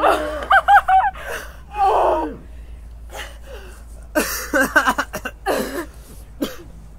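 Two people gasping, squealing and breathing hard as the burn of a Scorpion pepper they have just eaten sets in. There are short high squeals in the first second, then a run of sharp breathy gasps about four seconds in.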